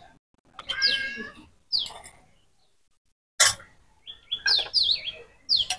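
Birds chirping: short, quick calls that slide down in pitch, a few in the first two seconds and a run of them near the end. A single sharp knock about three and a half seconds in.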